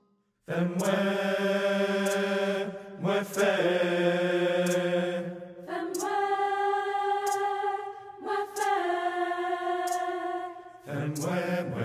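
Mixed choir singing long, held chords in a chant-like style, in four or five phrases of a couple of seconds each with short breaks between them.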